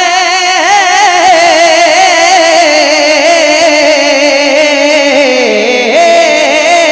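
A naat reciter singing one long, drawn-out melismatic note with a wavering vibrato, held without a break. It slides lower about five seconds in and steps back up near the end.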